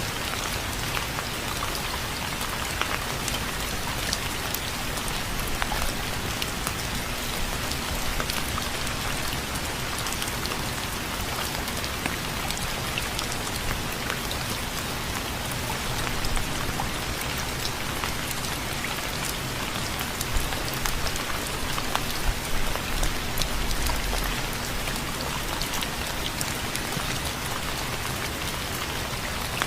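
Steady rain falling: an even hiss flecked with many small drop ticks, a little stronger for a few seconds past the middle.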